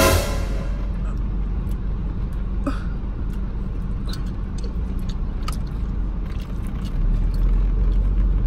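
Steady low rumble of a car with its engine running, heard from inside the cabin, a little louder near the end. Right at the start there is a short, high squeal of a voice that falls in pitch, followed by a few faint clicks.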